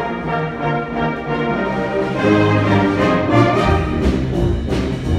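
School concert band playing held brass chords, the notes changing every second or so, with strong low bass notes coming in past the middle.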